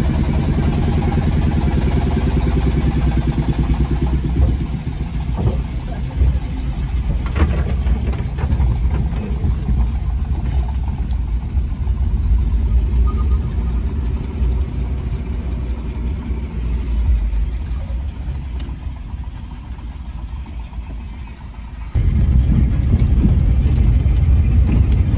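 Car engine running and low road rumble heard from inside the car's cabin while driving slowly; the rumble suddenly gets louder near the end.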